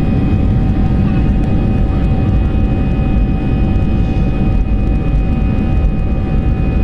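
Jet airliner taking off: a loud, steady low roar of the engines with a steady high whine over it.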